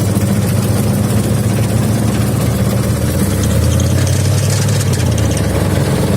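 Chevrolet 350 V8 on a wood chipper, running steadily. Its note drops lower for a couple of seconds about three seconds in, then settles back.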